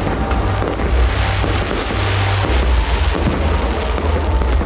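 Festive fireworks salute going off: a continuous low rumble of bursts with scattered crackling, with music playing along.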